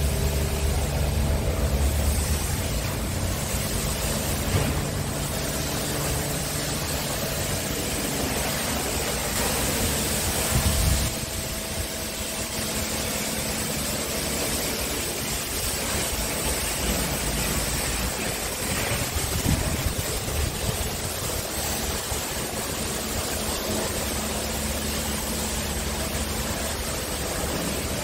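Scania R Euro 6 tractor unit's diesel engine idling steadily, a low even rumble that drops back about eleven seconds in.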